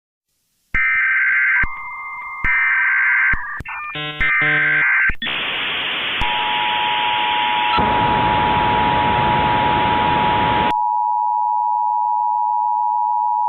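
Emergency Alert System-style opening: three short bursts of warbling electronic data tones like a SAME header, then a loud hiss of static. The steady two-tone EAS attention signal starts about six seconds in and carries on after the static cuts off near the ten-second mark.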